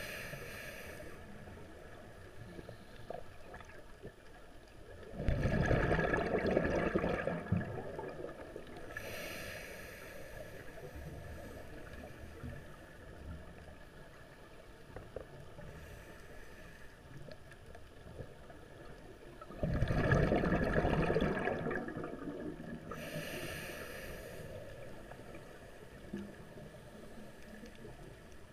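A scuba diver breathing through a regulator underwater. There are three short, high hisses of inhalation through the regulator, and two longer, louder rushes of exhaled bubbles of two to three seconds each, about five and twenty seconds in. A low, steady underwater hiss lies between the breaths.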